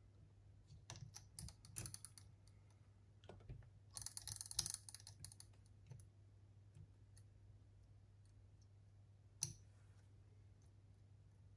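Faint, scattered small clicks and taps of hands and tools handling cassette deck transport parts, busiest in the first half, with one sharper click near the end, over a faint steady low hum.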